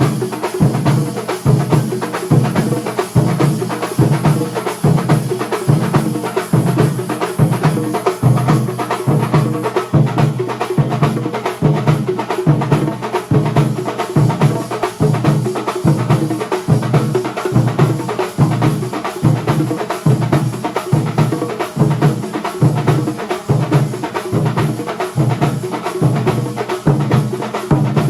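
Kerala thambolam percussion ensemble playing a fast, steady, driving rhythm of massed drum strokes.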